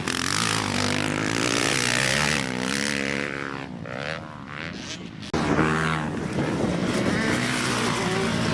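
Motocross dirt bike engines revving up and down, more than one at a time, with a louder one cutting in sharply about five seconds in.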